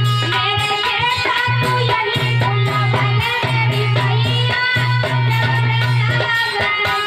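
Bhajan music: a regular percussion beat over a steady low bass, with a melody line that bends and glides above.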